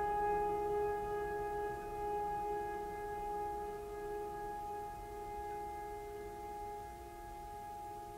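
Background music: a held chord of steady sustained tones, slowly fading.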